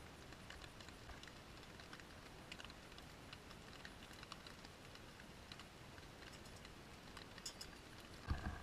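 Faint patter of scattered small ticks over a quiet hiss, with a louder knock and rustle of handling near the end.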